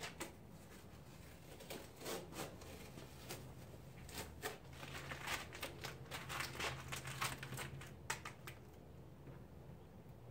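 Masking tape being peeled off a painted grill and crumpled into a ball: a series of short rips and crinkles, thickest from about two seconds in until about eight seconds in.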